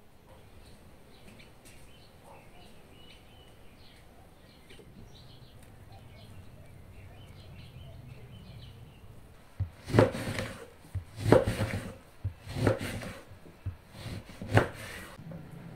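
A kitchen knife chopping through an orange onto a wooden cutting board: about four loud chops, roughly a second and a half apart, in the second half. Before the chops, faint bird chirping.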